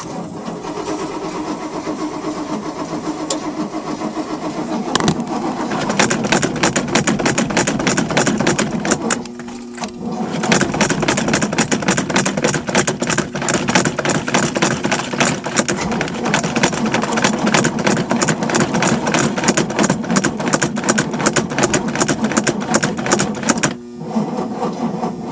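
Boat engine being cranked over by its starter motor in a fast, even chugging rhythm without catching, in two long attempts with a short pause about ten seconds in. The cranking is on a battery the owner believes is failing. It stops near the end, leaving a steady electrical hum.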